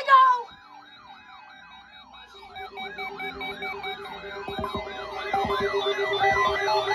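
A short loud burst, then an electronic siren yelping, its pitch rising and falling about three times a second. A steady pulsing tone joins about two seconds in, and the sound grows louder toward the end.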